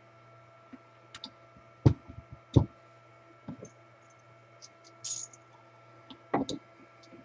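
Scattered clicks and light knocks as the parts of a Milwaukee portable band saw are handled and wiggled to check whether they are loose, about half a dozen in all. A faint steady hum runs underneath.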